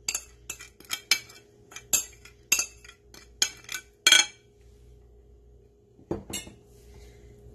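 A spoon clicking and scraping against a bowl as thick marinade paste is scooped out of it, a quick run of sharp clicks over about four seconds. The clicks stop, and one more knock comes about six seconds in.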